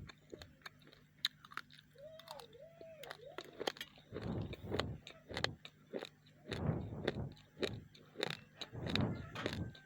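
Raw, uncooked rice grains being bitten and chewed close to the microphone: scattered sharp cracks at first, then repeated bouts of dense crunching from about four seconds in.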